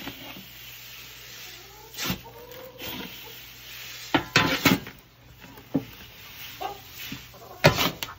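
A plastic paddle stirring a large metal pot of dry mixed grains (oats, barley, triticale, cracked corn): the grain rustles and scrapes, and the paddle knocks against the pot side in sudden bursts, about two seconds in, several around four to five seconds in, and once near the end.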